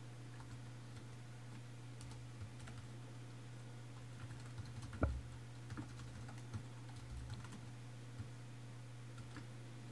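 Typing on a computer keyboard, faint and irregular keystrokes over a steady low electrical hum, with one louder knock about halfway through.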